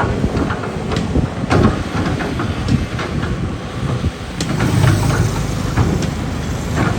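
Hydraulic excavator at work: a dense low rumble with irregular metallic knocks and clanks throughout.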